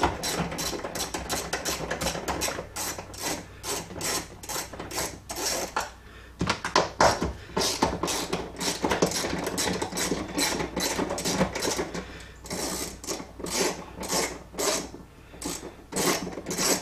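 Socket ratchet on an extension cranked back and forth, a rapid run of ratcheting clicks in quick strokes, about three strokes a second, turning a bolt deep in a car's center console. The strokes pause briefly about six seconds in and again near twelve seconds.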